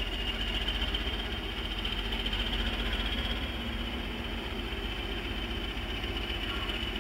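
Diesel shunting locomotive engine running steadily as the locomotive moves slowly with a train of tank wagons, a continuous mechanical drone with no sharp events.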